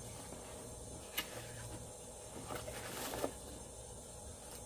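Faint rustling and clicks of a microphone's packaging being handled and opened, with one sharp click about a second in and a short run of crackles near the middle.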